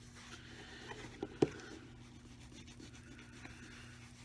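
Microfiber cloth rubbing shoe cream into a leather shoe upper: a faint, soft scratching. Two short knocks about a second and a half in, over a faint steady hum.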